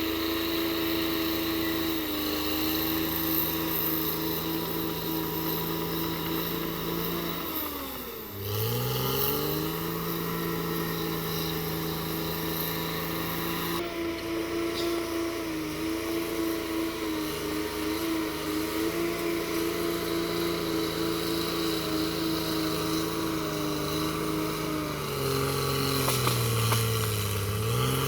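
Caterpillar D6R XL bulldozer's diesel engine running steadily. Its engine speed dips sharply and picks up again about eight seconds in and once more near the end.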